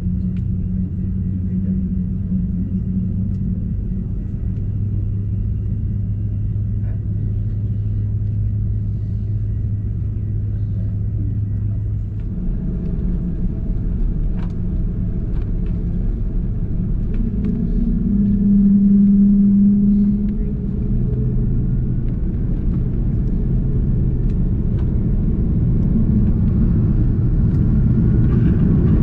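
Airbus A330-300 jet engines and airframe heard from inside the economy cabin: a steady low hum while taxiing, then the engine note rises and grows louder over the last several seconds as thrust builds for takeoff.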